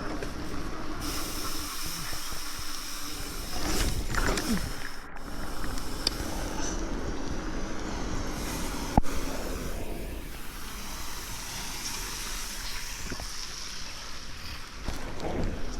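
Steady hiss of bike tyres rolling over a trail, mixed with wind on the microphone, with one sharp knock about nine seconds in.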